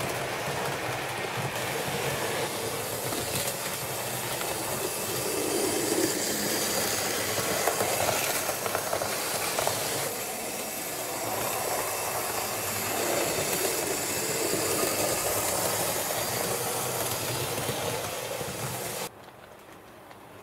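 HO-scale model train running along the track, its motor and wheels on the rails making a steady rushing noise. The noise swells and fades a few times, then drops off sharply about a second before the end.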